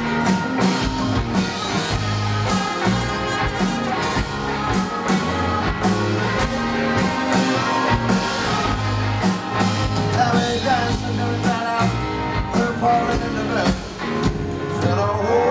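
Live rock band playing with electric guitars, bass and drums keeping a steady beat, with a voice singing in the second half.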